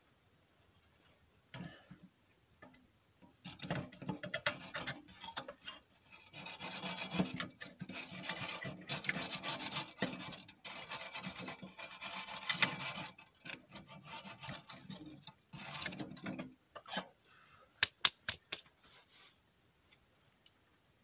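Irregular scraping and rustling of wood and kindling being worked by hand while lighting a small wood-burning stove, for about thirteen seconds, followed by a few sharp clicks near the end.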